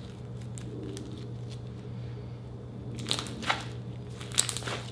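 Hands squeezing and kneading glitter slime packed with small plastic beads: wet crackling and popping as air pockets burst and the beads crunch together, with faint clicks at first and two louder bursts of crackles in the second half.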